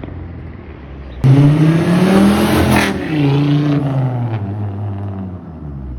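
A car engine running steadily, then, after an abrupt cut about a second in, a louder car engine revving up and down several times.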